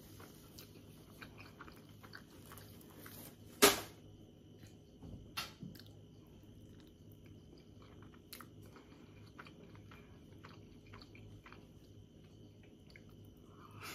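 Close-miked chewing and biting of steamed manty dumplings with sour cream: soft wet mouth sounds and small clicks. One sharp click stands out about four seconds in, with a smaller one a second and a half later.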